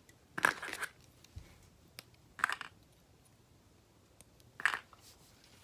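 LEGO plastic pieces being handled, clicking and rattling in three short bursts about two seconds apart.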